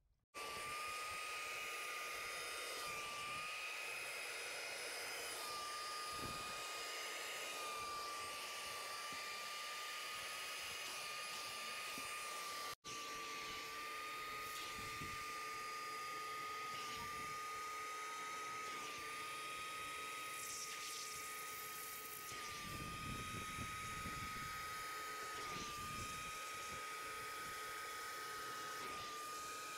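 Carpet extractor's vacuum motor running with a steady high whine while its upholstery hand tool is drawn over a cloth car seat, with low rushing swells from the suction. The sound starts just after the opening instant and drops out for a moment about thirteen seconds in.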